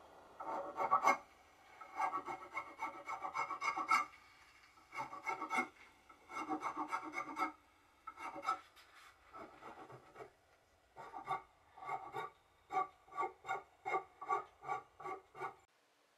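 Metal hand file rasping along the edge of a wooden block in repeated back-and-forth strokes. The strokes come in short runs at first, then in the last few seconds they come separately, about two or three a second.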